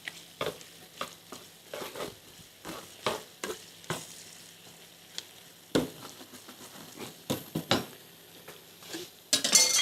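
Kitchen tongs clicking and knocking in a frying pan of onions, irregular sharp taps over a faint sizzle. A man's voice starts right at the end.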